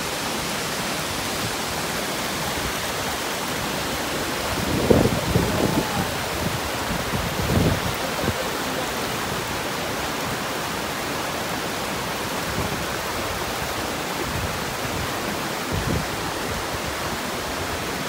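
Steady rush of falling and tumbling water from a waterfall pouring into its pool and a mountain stream running over boulders. A couple of brief louder low rumbles come about five and seven and a half seconds in.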